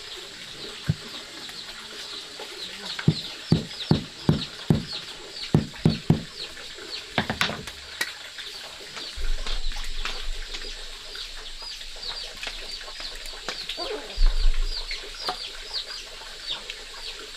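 Chickens clucking, with rapid high chirps going on throughout. A run of about eight knocks comes between three and six seconds in.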